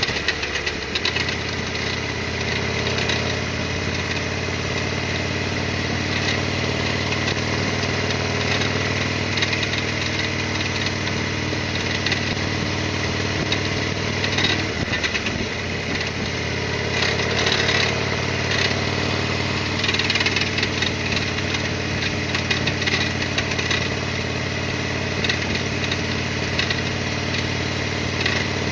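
Harley-Davidson XL1200R Sportster's air-cooled 1200 cc V-twin running at a steady engine speed, picked up by a camera on the rider's helmet chin mount. Its note breaks briefly about halfway through, then settles back to a steady run.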